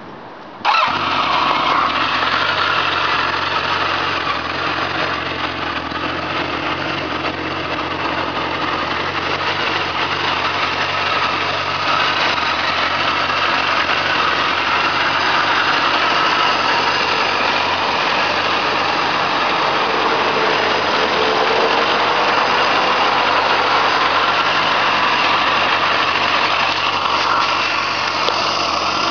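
A 1999 Kawasaki Voyager XII (ZG1200) touring motorcycle's liquid-cooled inline-four engine starts less than a second in, then idles steadily.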